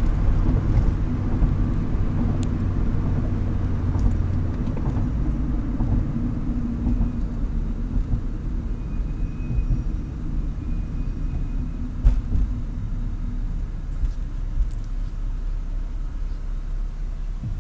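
Mazdaspeed MX-5's turbocharged 1.8-litre four-cylinder engine idling, its low note weakening about four and a half seconds in. The idle is unsteady and acts up from time to time, which the owner suspects is a vacuum leak.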